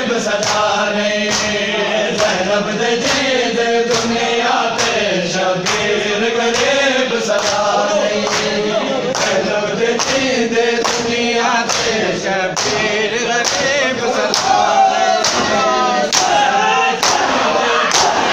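Group of men chanting a noha, a mourning lament, in unison, with sharp hand slaps on bare chests (matam) keeping a steady beat of about one and a half slaps a second.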